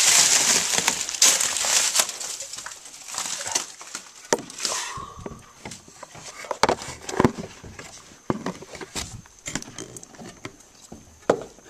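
Rustling and scattered knocks and creaks of someone moving about on wooden boards in the dark with the camera in hand. A loud rustle in the first two seconds gives way to quieter, irregular clicks and knocks.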